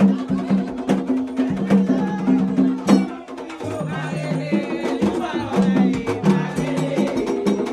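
Music with a low melody line stepping between notes and sharp clacking percussion, loud throughout with a short dip about three seconds in.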